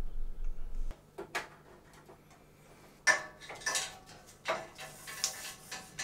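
A power cable being threaded through a metal server rack and plugged in: irregular clicks, knocks and clatter of the plug and cable against the rack's metal, the loudest about three seconds in.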